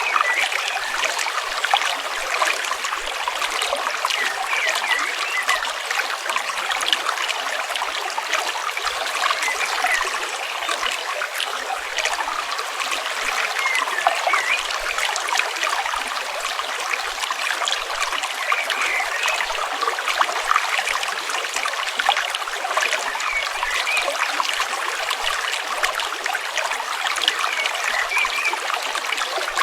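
Stream water flowing steadily, trickling and splashing with many small gurgles.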